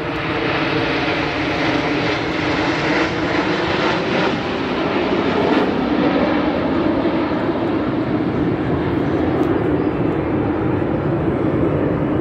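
A formation of Canadair CT-114 Tutor jets, each with a single turbojet, flying past: steady jet engine noise with a low hum running through it.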